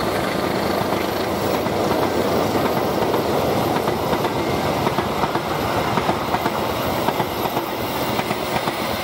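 Stainless-steel passenger train coaches rolling past at speed, a steady rumble of wheels on rail with many rapid, sharp wheel clicks.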